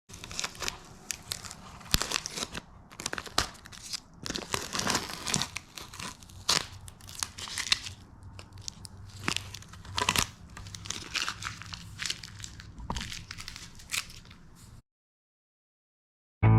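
Masking tape and rubbery Plasti Dip coating being peeled and pulled off a plastic wheel cover: irregular crackling, crinkling and tearing with sharp little snaps, stopping about fifteen seconds in.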